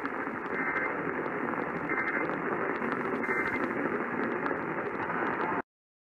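Steady hiss and static from a Sparc tabletop radio's speaker, cutting off abruptly near the end.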